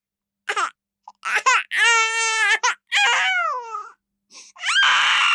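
Infant crying in short, high-pitched wails with pauses between them, one cry held for most of a second. Near the end a longer, harsher call starts, which runs on into a rooster crowing.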